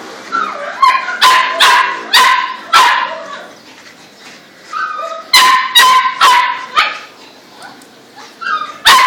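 Small dog, a chihuahua, yapping in quick runs of sharp barks: about four barks, a pause of two seconds, then about five more, and another run starting near the end.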